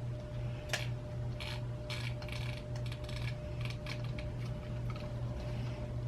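Small plastic parts clicking and tapping as a computer mouse is handled and reassembled: a sharp click about a second in, then a run of quick taps. A steady low hum runs underneath.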